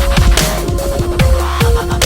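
Electronic music with a heavy, fast beat: deep kick drums falling in pitch, several a second, under short repeating synth notes.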